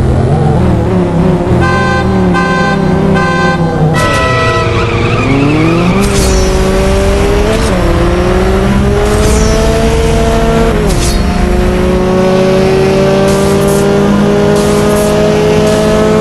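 Car engine accelerating hard through the gears: its pitch climbs steadily, falls back at each shift twice, then climbs again, with a few short stabs of music early on.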